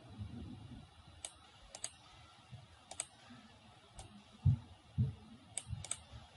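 Sparse computer clicks, single and in quick pairs, from a mouse or keyboard at a desk. A few dull low thumps come in the second half.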